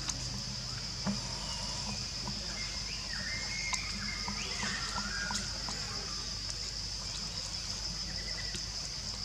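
Steady high-pitched outdoor background drone with low rumble, faint scattered ticks, and a few faint chirping calls about three to five seconds in.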